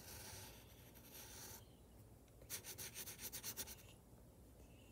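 Faint pencil lead scratching on paper. One steady stroke lasts about a second and a half, then after a short pause comes a quick run of back-and-forth strokes, about eight a second.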